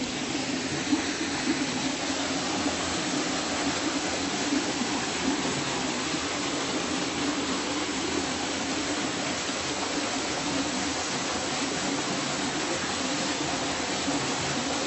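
Small waterfall with little water in it pouring into a pool: a steady rush of falling water.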